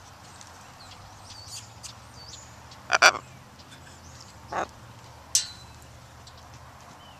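A pet macaw close by gives three short, loud squawks, the loudest about three seconds in, over faint chirping of small birds.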